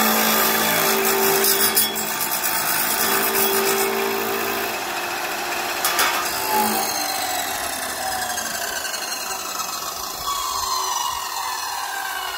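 Abrasive chop saw with a fibre cutting disc grinding through a metal channel. About six seconds in, the grinding stops with a click and the motor's whine falls steadily in pitch as the disc spins down.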